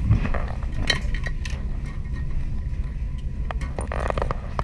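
Steady low rumble of the fishing boat's engine, with scattered clicks and light knocks over it.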